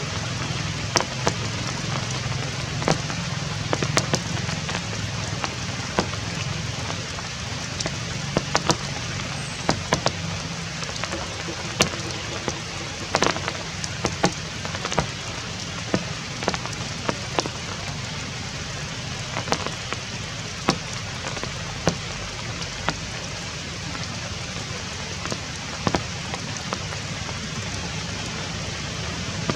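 Steady rain falling, with many sharp drops ticking at irregular intervals on nearby surfaces, over a low steady hum.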